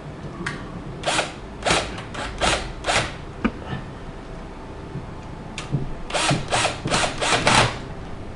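A tool working in short rasping strokes, in two runs of about five, each stroke about half a second apart, with a pause of a few seconds between the runs.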